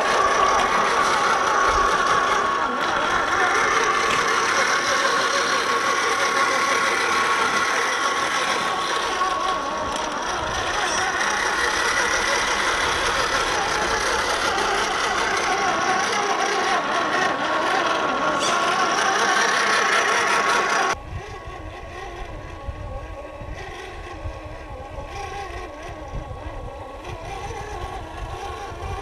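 Electric motor and drivetrain of a scale RC Toyota 4Runner pickup whining as it drives, the pitch shifting with throttle over a steady hiss. About 21 seconds in it cuts suddenly to a quieter stretch with a low rumble and a fainter whine.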